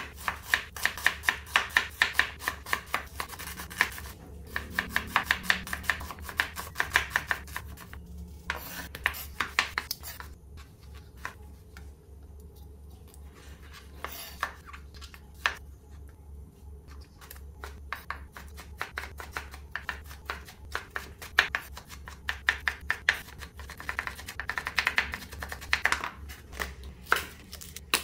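Chef's knife chopping on a wooden cutting board in quick runs of sharp taps, about four a second, as it slices through red onion and tomato. In the middle stretch the cuts slow to a few separate knocks before the fast chopping resumes.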